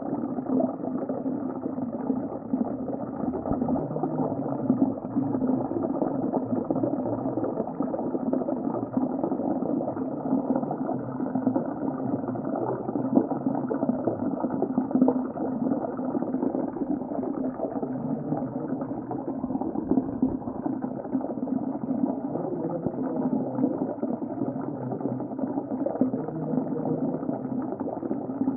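Underwater sea ambience: a steady, muffled bubbling and rumbling of water, dull with no high end.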